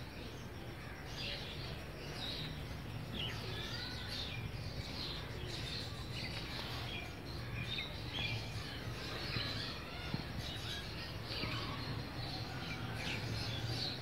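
Several birds chirping and twittering in many short, high calls, over a steady low hum.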